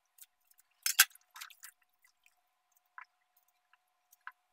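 A cleaver cutting the roots off washed vegetables over a bowl of water. A sharp snap of a cut comes about a second in, followed by a few quieter cuts, drips and splashes.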